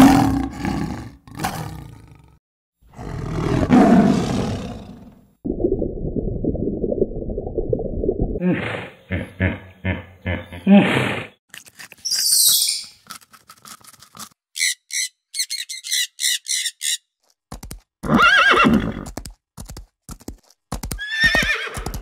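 A string of different animal calls cut one after another: a lion roaring and growling in the first few seconds, then rougher low calls and pulsing sounds, a run of high, quick chirps in the middle, and rhythmic calls with whinny-like cries near the end.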